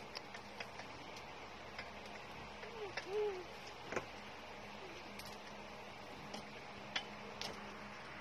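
Scattered light clicks and taps from handling, irregular and a second or so apart, over a steady faint hum. A short rising-and-falling tone comes about three seconds in.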